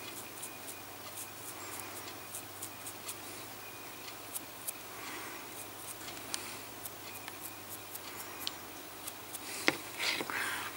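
Faint scratching and scattered small clicks of a dry brush being stroked over a painted miniature's fangs, with fingers handling the model. Louder rubbing and clicks come near the end.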